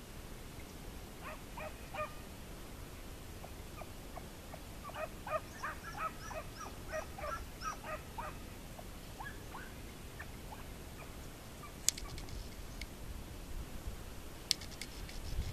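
Hunting dogs baying at a distance: a rapid run of short yelps that builds in the middle and then thins out. A couple of sharp clicks near the end.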